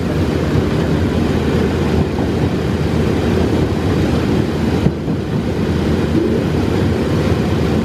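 Diesel locomotive running at speed, heard from inside its cab: a loud, steady mix of engine noise and wheels rolling on the rails.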